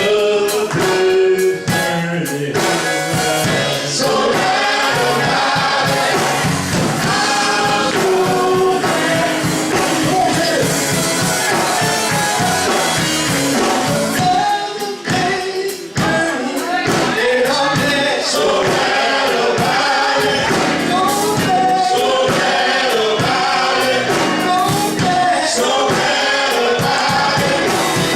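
A choir singing gospel music with instrumental accompaniment.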